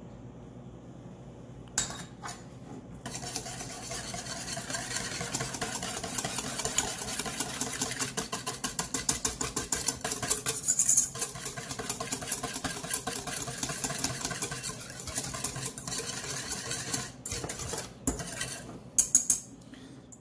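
Wire whisk beating a mayonnaise-based white barbecue sauce in a stainless steel mixing bowl: rapid, continuous clinking and scraping of the wire against the metal bowl. A couple of knocks come about two seconds in, before the whisking starts about a second later. The whisking stops a few seconds before the end and gives way to a few separate clinks.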